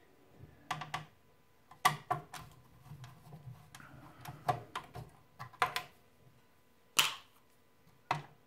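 Screwdriver working screws out of a cassette deck's metal chassis: a series of irregular sharp clicks and taps, the loudest about seven seconds in.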